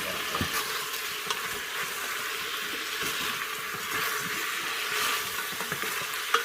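Squirrel meat and eggplant stir-frying in hot oil: a steady sizzle with the occasional click of a utensil stirring the pan.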